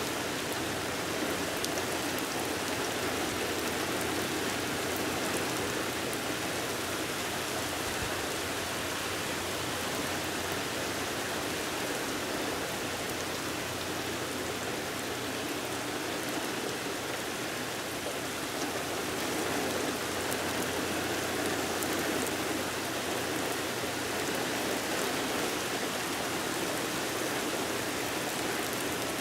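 Steady rain falling during a thunderstorm, an even hiss with scattered individual drops ticking on surfaces.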